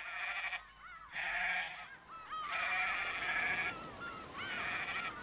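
A flock of sheep bleating, about four long bleats one after another, with short rising-and-falling calls in between.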